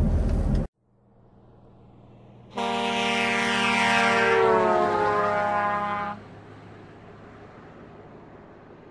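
Truck cab road noise cuts off abruptly, then an outro sound effect: a swelling whoosh leads into a loud horn-like chord of several tones, some sliding down, lasting about three and a half seconds, then dying away in a long fading tail.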